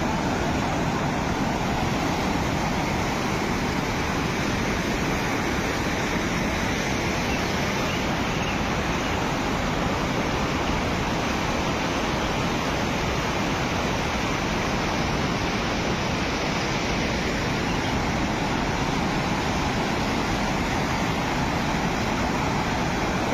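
Floodwater of the swollen Alaknanda river rushing in a steady, unbroken noise.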